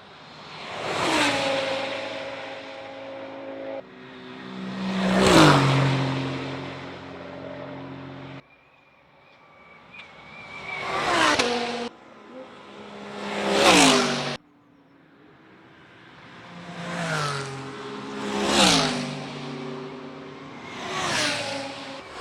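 Endurance race cars passing at speed one after another, about seven pass-bys, each engine note swelling and dropping in pitch as the car goes by, with abrupt cuts between some of them.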